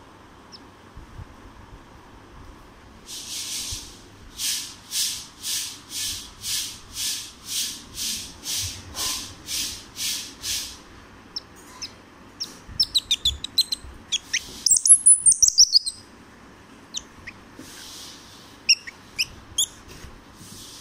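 Baby Indian palm squirrel calling. It gives a steady run of high, hissy chirps, about two a second for some seven seconds, then a burst of rapid, loud, high squeaks falling in pitch, and a few scattered chirps near the end.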